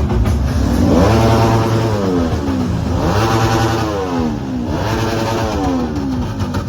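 Vehicle engine revved three times in quick succession, the pitch climbing and falling back with each rev over a steady low rumble.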